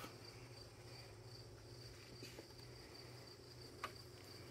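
Faint insect chirping, a high, evenly pulsing tone that runs on steadily over a low hum, with one soft click near the end.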